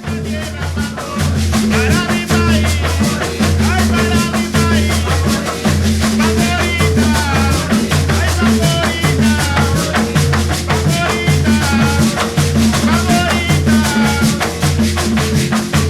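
A band playing with a bass line, drums and a fast, continuous shaker rhythm, and a gliding melody line over them.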